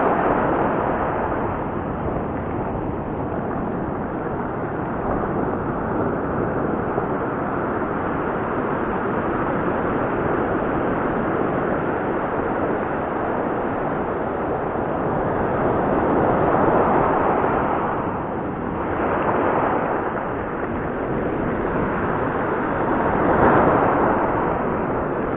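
Waves breaking and washing up a dark gravel beach close by, a continuous surf noise that swells and eases, with louder surges about two-thirds of the way through and again near the end.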